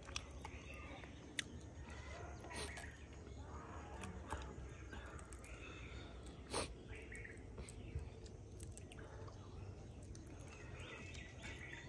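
Quiet eating sounds: fingers mixing rice and fried insects on a wooden plate, with a few sharp clicks. Birds call faintly in the background.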